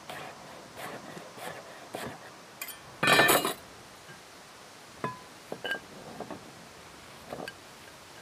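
Food-prep sounds at a wooden cutting board. A chef's knife taps lightly through apple slices, then there is a louder half-second clatter about three seconds in, followed by a few short ringing clinks of crockery.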